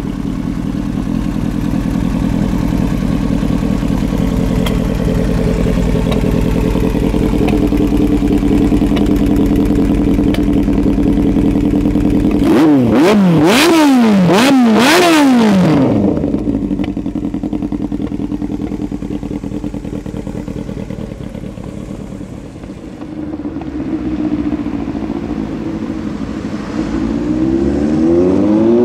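Yamaha R1 inline-four with a Yoshimura exhaust idling steadily, then blipped through several quick revs a little under halfway in before dropping back to idle. Near the end the revs start rising again.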